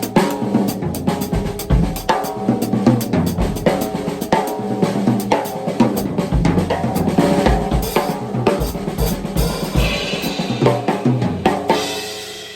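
Drum kit played as a continuous groove-and-fill passage: bass drum, snare and toms in quick strokes with cymbals, building to a cymbal wash near the end and then ringing out as the playing stops.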